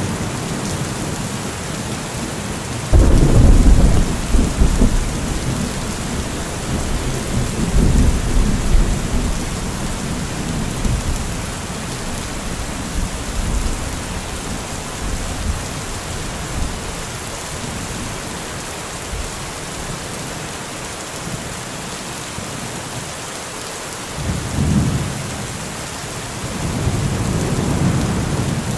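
Heavy rain falling steadily, with thunder. A sudden loud thunderclap about three seconds in rumbles on for several seconds; a shorter rumble and then a longer, quieter one follow near the end.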